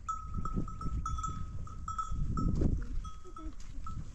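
Bells on grazing goats and sheep clinking irregularly, several short rings a second, over a low rumble that swells a little over two seconds in.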